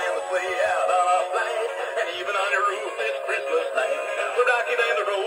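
A battery-powered t.l. Toys Hu-La Hoop Santa animated figure playing its Christmas song: a synthesized male voice sings over a backing tune from the toy's small built-in speaker, thin and without bass.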